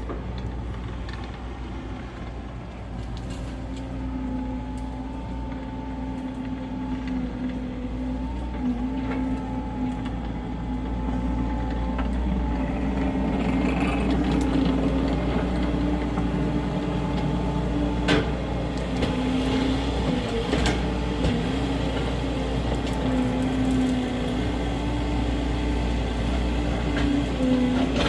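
Skid steer engine running steadily under work with a wavering drone, growing louder over the first half. A couple of short knocks sound in the second half.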